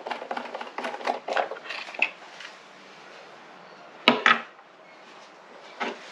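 Quick clicks and rattles of hard plastic as a Stanley chainsaw's top cover is worked loose. Then, about four seconds in, two loud sharp clatters as the yellow plastic cover comes off and is handled, and a lighter knock near the end.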